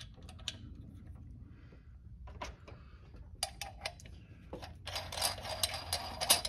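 Hand tools working on engine bolts and studs: light metal clicks and clinks, a few sharper clicks a couple of seconds in, then a fast run of clicking from about five seconds in as fasteners are snugged up.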